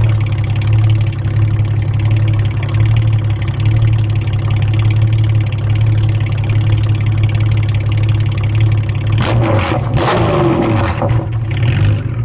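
Honda GL1800 Gold Wing's flat-six engine idling steadily through aftermarket Mustang silencers, with a short throttle blip about nine seconds in that falls back to idle.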